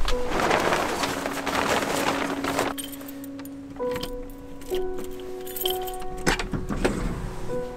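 Background music throughout; over the first few seconds a plastic tarp crinkles loudly as it is handled, then keys jingle and the skid steer's cab door latch clicks open.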